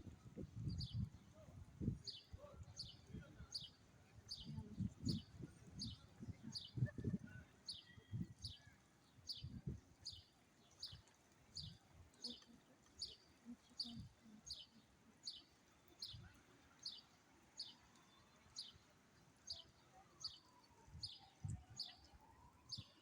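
A small bird chirping over and over, a short high note repeated evenly about one and a half times a second. Low bumps and rumbles come and go, heaviest in the first half.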